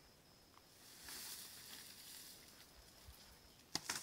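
Faint rustling of dry grass and brush, then a short, sharp crackle near the end: a footstep crunching on dry twigs.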